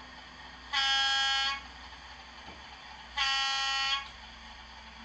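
Two short blasts of a British Rail Class 37 diesel horn, played through the small loudspeaker of a sound-fitted Bachmann model locomotive. Each blast lasts under a second, about two and a half seconds apart, over a faint steady hum.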